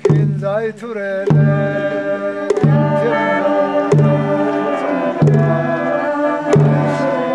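A group of voices singing together to a large drum beaten with a long stick, one slow steady stroke about every 1.3 seconds, each stroke ringing on low under the song.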